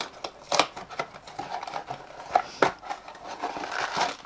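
Handling and opening a small cardboard mystery-figure box: a few sharp clicks and taps, the loudest about half a second in and twice around two and a half seconds in, with light rustling that grows near the end.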